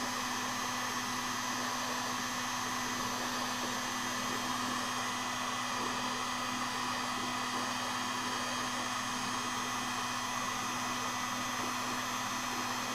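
Electric heat gun running steadily, an even blowing whir with a few steady tones in it, as it heats a cable wrapped on PVC tubing to set it into a coil.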